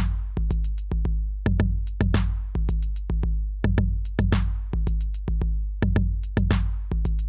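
Electronic background music with a steady drum-machine beat: sharp hi-hat clicks, deep bass and a cymbal swell about every two seconds.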